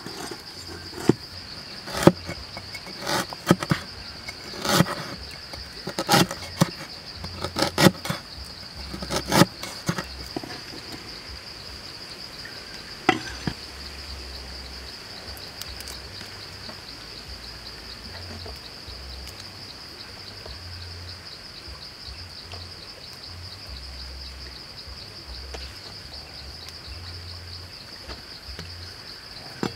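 Steady, high-pitched insect chorus with a fine pulsing buzz, like crickets or cicadas. Sharp knocks and clicks sound repeatedly in the first ten seconds and once more a few seconds later.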